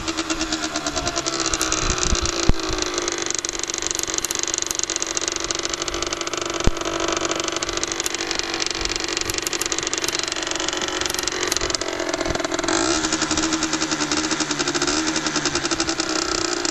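Derbi Senda 50cc two-stroke engine with a Yasuni R3 expansion-chamber exhaust, revving up over the first few seconds and then held at high revs, its pitch shifting again about 13 seconds in. Two short sharp clicks stand out along the way.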